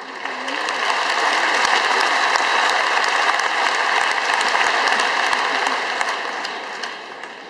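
A large arena crowd applauding loudly, the clapping swelling up in the first second and dying away near the end.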